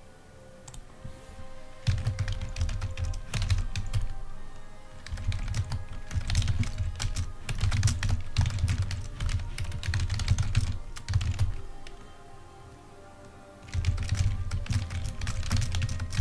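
Computer keyboard typing in three bursts of rapid key clicks, starting about two seconds in, with short pauses between, over faint background music.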